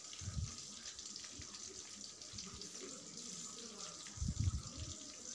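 Chopped onions, green chillies, curry leaves and spice powders frying in hot oil in a kadai with a steady sizzle; two brief low bumps, one just after the start and one about four seconds in.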